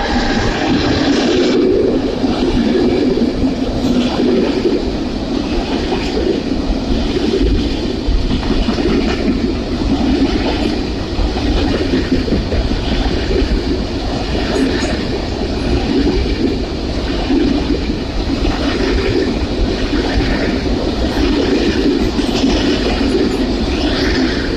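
Freight train running past at speed: the E405 electric locomotive goes by in the first second or so, then a long string of covered goods wagons. It makes a steady heavy rumble of wheels on rail, with clicks over rail joints every second or two.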